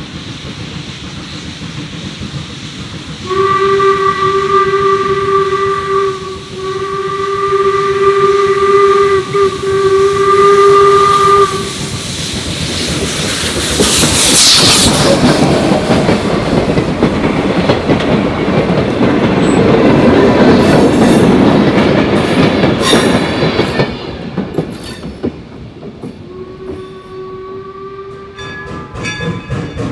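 Steam whistle of Northern Central Railway 4-4-0 No. 17 "York", a replica American-type steam locomotive, blowing three blasts as it approaches. The locomotive then passes close with a sudden loud hiss of steam, followed by the rumble and clatter of the passing train. One more short whistle blast comes near the end.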